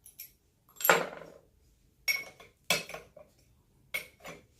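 About six sharp metallic clanks and clinks at irregular intervals, metal knocking on metal as the freshly cut steel pipe and tools are handled at the bench vise; the loudest, about a second in, rings briefly. The grinder is not running.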